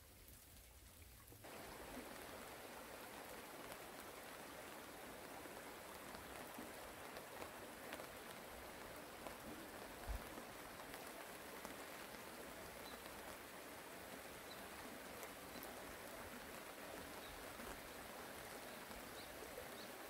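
Faint, steady hiss of a shallow stream running over gravel, starting suddenly about a second and a half in, with a light patter of rain. There is a single soft low bump about ten seconds in.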